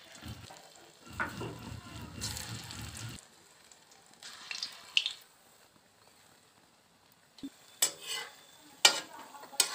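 Moong dal mangode batter frying in hot oil in a metal kadhai, sizzling steadily. A slotted metal spatula knocks and scrapes against the pan a few times in the second half.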